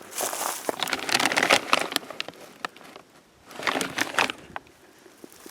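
Footsteps crunching over rough, littered ground, in two spells with a short lull between.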